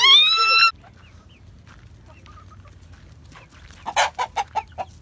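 A high, rising shriek, cut off under a second in, then quiet, then a hen clucking: a quick run of about six sharp clucks about four seconds in.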